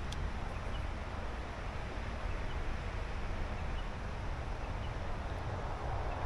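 Wind buffeting the microphone over a steady outdoor hiss, with a few faint, short high chirps scattered through.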